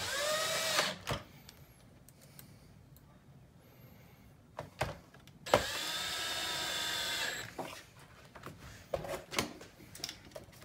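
Cordless drill-driver running in two bursts as it drives screws into the plastic housing: a short run about a second long that rises in pitch at the start, then a steadier run of about two seconds from about five and a half seconds in. Light clicks and knocks of tools and parts come between the runs.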